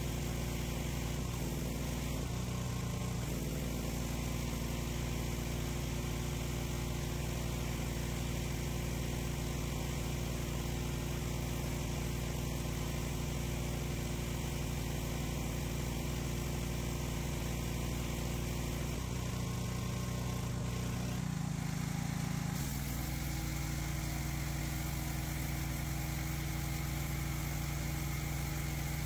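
Pressure washer running steadily while its jet hits concrete: an engine-like drone under a constant spray hiss. The pitch of the drone shifts a little about three-quarters of the way through.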